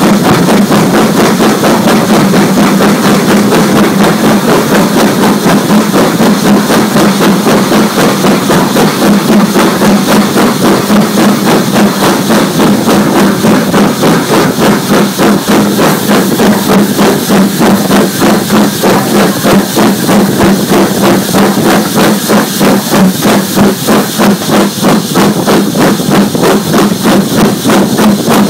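Steam locomotive under way, its exhaust beats coming in an even rhythm over a steady drone, the beats growing more distinct later on.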